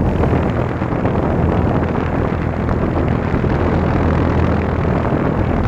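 A 2018 3.5-ton Goodman heat pump's outdoor unit running steadily in cool mode: the condenser fan blowing and the scroll compressor humming low.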